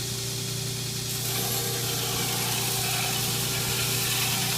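Belt grinder running with a steady motor hum and belt hiss; about a second in the hiss grows louder as work is pressed against the moving belt and ground.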